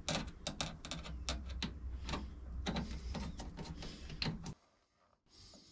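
Hands working hose clamps and plastic hose fittings onto a washdown pump's hoses: a run of irregular small clicks, knocks and rattles over a low rumble, stopping about four and a half seconds in.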